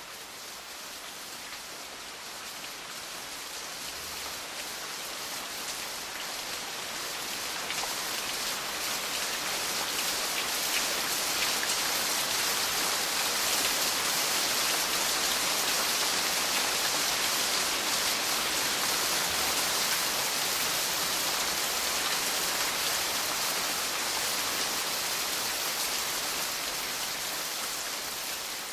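Steady rainfall, an even hiss of many drops, swelling through the middle and easing off toward the end.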